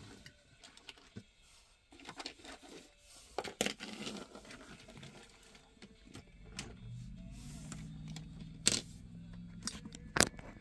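Small die-cast metal toy cars being handled and set down on a hard surface: scattered light clicks and taps, the sharpest two near the end.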